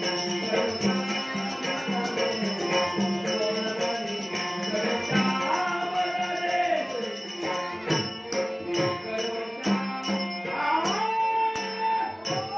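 Live Dashavatar theatre music: a man sings a thumri-style melody to harmonium, with steady strokes on a two-headed barrel drum and jingling small hand cymbals. Near the end the voice slides up and holds a long high note.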